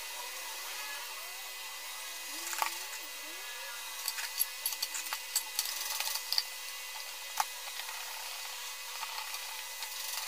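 Sheet-metal cover of an ATX PC power supply being handled and seated on its chassis: a run of small metallic clicks and taps, the sharpest about seven seconds in. Near the end a screwdriver starts turning a cover screw, with faint ticking.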